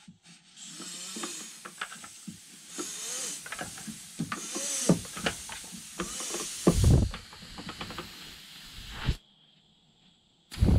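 Air hissing out through the puncture in a Xiaomi Mi 1S e-scooter's 8.5-inch inner tube as the inflated tube is squeezed by gloved hands. The hiss comes in surges and stops about nine seconds in, among rubbing and clicking from handling the rubber, with a dull thump about seven seconds in.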